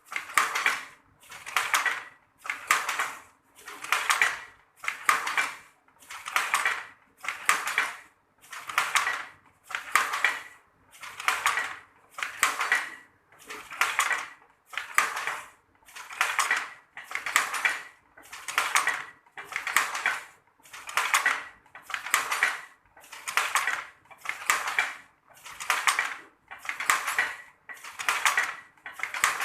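Traditional wooden handloom weaving sarong cloth, clattering in a steady rhythm of about one stroke a second, each stroke a short rattling clack as the shuttle is sent across and the beater is pulled in.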